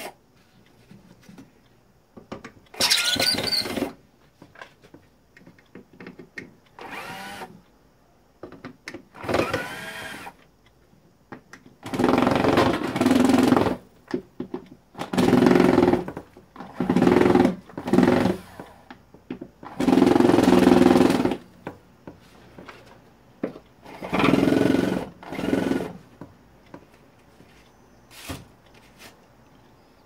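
Cordless electric screwdriver backing tightly set screws out of a refrigerator's steel base panel, running in a series of short bursts of a second or two each, with quieter pauses between.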